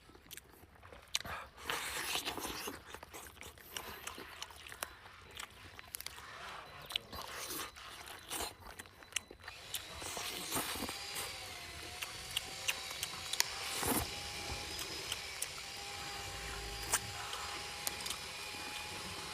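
A person eating a chicken drumstick: biting and chewing with short crunches and clicks of meat and bone. About halfway through, a faint steady whine joins.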